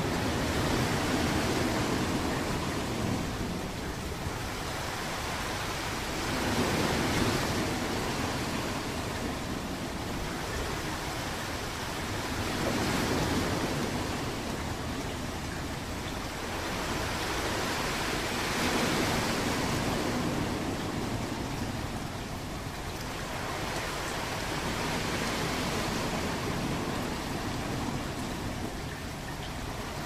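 Ocean waves washing ashore: a steady hiss of surf that swells and fades in a slow rhythm, about once every six seconds.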